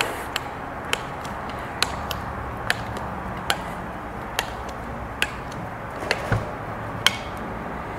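Hand-tightening an M8 button-head bolt and nylock nut with an Allen key and wrench: short sharp metal clicks about once a second as the tools work the bolt against the steel bracket, over a steady low hum.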